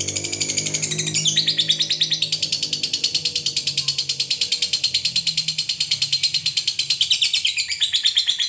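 Fischer's lovebird in a long unbroken 'ngekek' chatter: a rapid trill of high, shrill notes at about ten a second, changing pitch slightly about a second in and again near the end.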